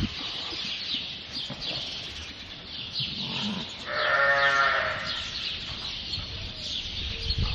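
A sheep bleats once, a single long bleat about four seconds in, over the repeated high chirping of small birds.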